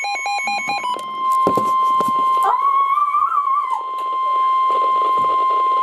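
NOAA Weather Radio warning alarm tone: a steady, piercing single tone announcing a new weather warning. A fast stepping run of beeps is heard in the first second, and a wavering tone wobbles over the steady tone for about a second in the middle.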